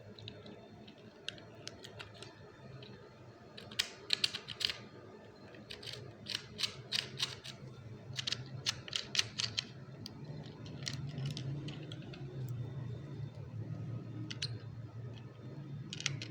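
Hard plastic pieces of a Polly Pocket playset being handled, giving quick clicks and taps: a cluster about four seconds in and a run of clicks from about six to nine seconds. A low hum sits underneath from about ten seconds on.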